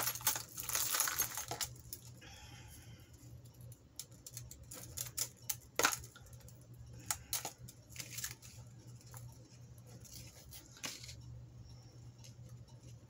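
Costume jewelry handled and untangled by hand: a rustle of chains and pieces in the first second or so, then scattered sharp clicks of metal and beads knocking together.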